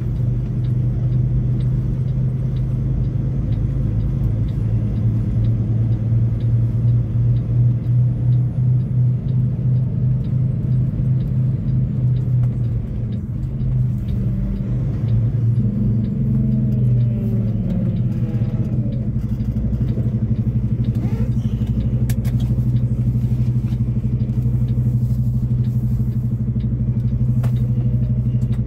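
Semi truck's diesel engine running steadily, heard from inside the cab. About halfway through the engine note dips, then shifts in pitch before settling back to a steady hum.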